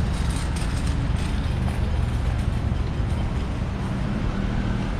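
City street traffic: a steady low rumble of passing road vehicles.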